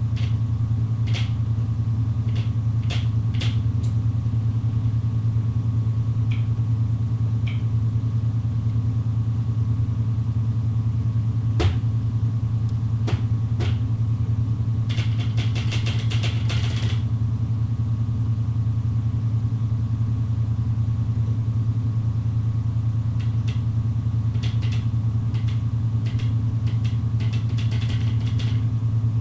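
Steady low hum with even overtones. Over it come light taps and clicks of fingers tapping a breadboard to trigger a piezo vibration sensor: a few at first, a quick rattling run about halfway through, and another cluster near the end.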